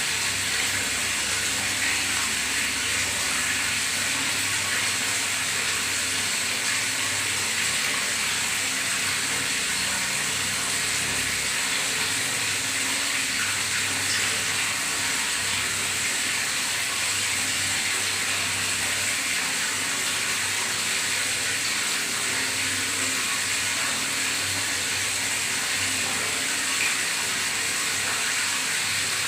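Water gurgling steadily in a bathtub.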